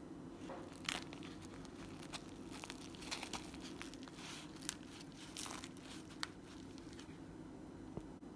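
Irregular crinkles and crackles as a filled sub sandwich is folded shut and pressed down by a nitrile-gloved hand, over a steady low hum.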